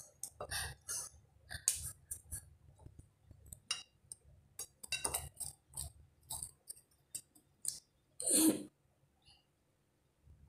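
Eating noises from raw bitter gourd: scattered crisp clicks and crunches of chewing and of slices handled on a plate, and a loud breathy exhale about eight seconds in.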